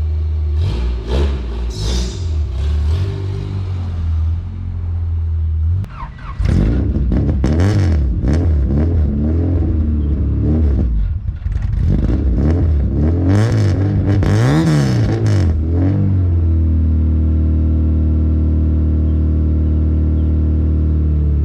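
H-series-swapped Honda Civic engine running on E85. It holds steady at first, then revs up and down repeatedly with a few sharp exhaust pops, then settles back to a steady drone.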